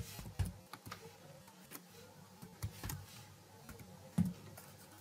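Computer keyboard typing: scattered, irregular keystrokes, with one louder keystroke about four seconds in.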